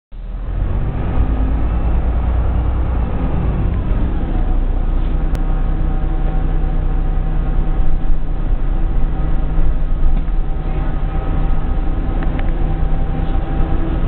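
Van Hool A120 city bus heard from inside the passenger cabin: a steady deep engine rumble with a whining tone on top that drops in pitch about three to four seconds in, then holds level. The whine fits the extra noise that this bus's gearbox made at the time.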